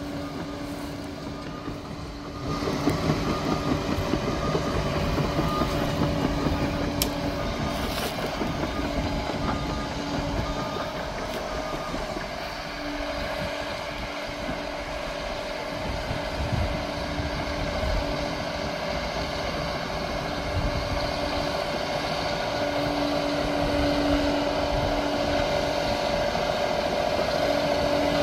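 Liebherr 746 crawler dozer working, its diesel engine running steadily with a whine over a rough rumble, growing louder about three seconds in.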